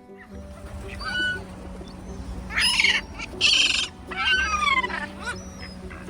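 Seagulls crying amid a flock of birds at a feeding spot: a run of harsh, falling squeals and calls, the loudest a little past the middle.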